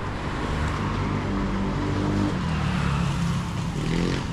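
Road traffic: a motor vehicle's engine running close by with a steady, even note, over general street noise.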